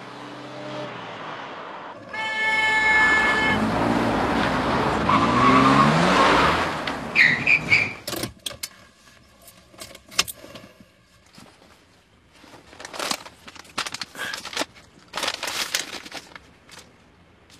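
A car horn sounds one steady blast of about a second and a half, then a car passes with its engine pitch rising and falling and a brief high squeal. After that, quieter clicks and jingling of keys at a car's ignition.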